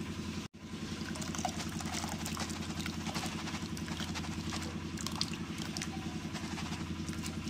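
A steady low mechanical drone like an idling engine, dropping out for an instant about half a second in. Faint light clinks and splashes sit over it as boiled cracked corn is tipped into a metal mesh strainer.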